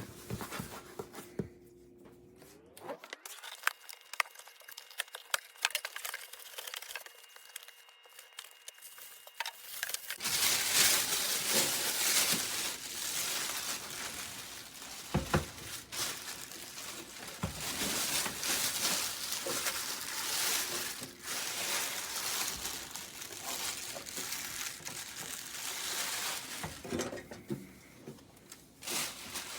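Crinkling and rustling as things are handled, with scattered knocks and clinks, dense and steady from about a third of the way in; before that, only a faint hum and a quiet stretch.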